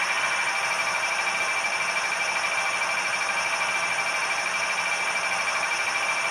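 Sound-decoder recording of a GE Tier 4 GEVO diesel prime mover, throttled back from notch 8 toward idle, with the air compressor running, played through the small speaker of a ScaleTrains CN ET44AC model fitted with a LokSound V4 decoder. The sound is steady, with a constant high whine.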